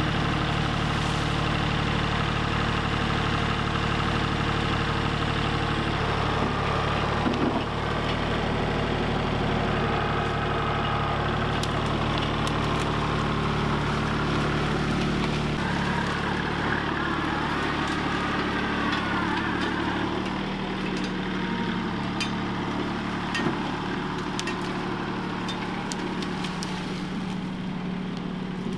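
Kubota compact tractor's diesel engine running steadily while carrying a log slung from its front loader bucket. The engine grows a little fainter after about twenty seconds as the tractor drives off.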